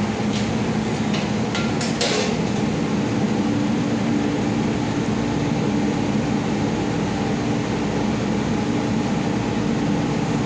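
Steady mechanical rumble with a low hum, and a few sharp clicks in the first two seconds.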